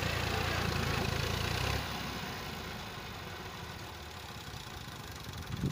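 Massey Ferguson tractor's diesel engine running steadily as it hauls a trolley loaded with sand. The engine note drops and grows quieter about two seconds in.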